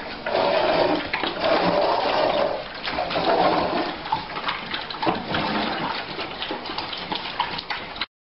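A litter of puppies eating from bowls, a noisy mix of chewing and slurping with many small clicks. It cuts off suddenly about eight seconds in.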